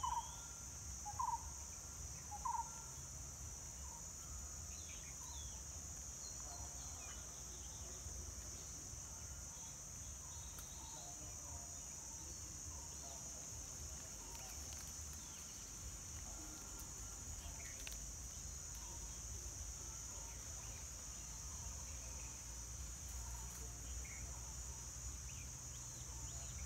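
Steady high-pitched insect chorus, like crickets, with scattered faint bird calls. Three short, loud chirps come in the first few seconds, over a low background rumble.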